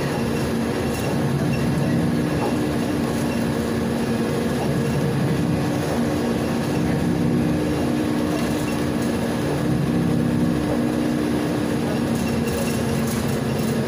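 Inside a moving Volgabus 5270G2 city bus fuelled by liquefied natural gas: the engine runs with a steady drone of several held low tones, under steady road and tyre noise.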